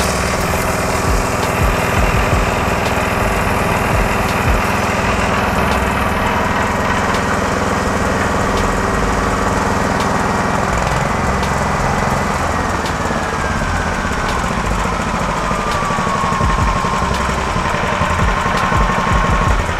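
Small petrol engine driving an FFC-15 disc mill, running steadily while mung beans are ground into flour. About halfway through, the low engine hum changes and a high whine falls slowly in pitch.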